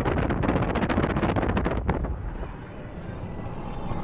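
Wind buffeting the microphone of a camera on a moving car, a dense crackling rush over a heavy low rumble. About two seconds in it cuts abruptly to a quieter, steady rumble of road and wind noise.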